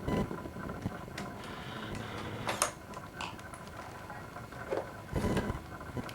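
Handling noise from a camcorder being worked by hand: scattered plastic clicks and soft bumps, with one sharp click about two and a half seconds in and a low thump about five seconds in.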